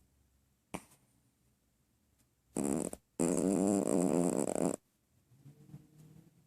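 Chihuahua snoring: a short snore about two and a half seconds in, then a longer one lasting about a second and a half. A sharp click sounds about a second in.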